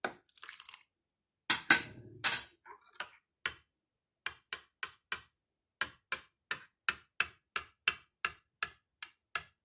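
Metal spoon quickly stirring a sour cream and egg mixture in a ceramic bowl, clinking against the sides about four times a second, as hot broth is beaten in to temper it. A few louder knocks come in the first seconds.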